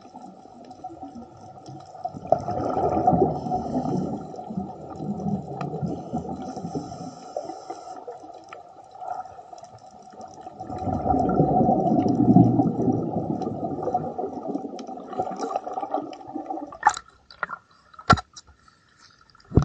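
Underwater recording of a scuba diver's regulator exhaust: bubbling, gurgling noise that surges twice in long bursts with a lower hiss between, and a few sharp clicks near the end.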